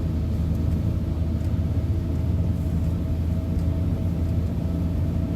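Volkswagen T4 van on the move, heard from inside the cabin: a steady low drone of engine and road noise with a hum that holds one pitch.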